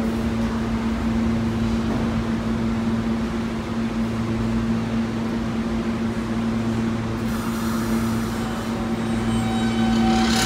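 NYC subway train standing in the station with a steady low hum, then starting to pull out about seven seconds in, its propulsion giving whining tones that climb in pitch as it gathers speed.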